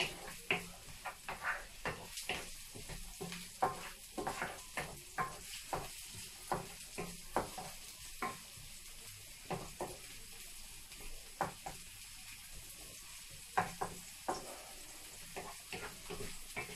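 Diced onion sizzling in hot olive oil in a frying pan. A wooden spatula scrapes and knocks against the pan in quick, irregular strokes as the onion is stirred.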